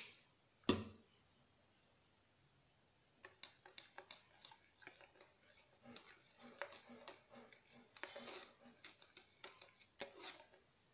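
Metal spoon stirring a thick milk mixture in a small plastic cup, with light, irregular clinks and scrapes against the cup's sides from about three seconds in. Two sharp knocks come right at the start.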